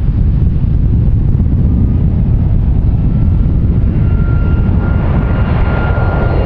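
Jet airliner engines rumbling loud and deep, with a steady high whine coming in about halfway through.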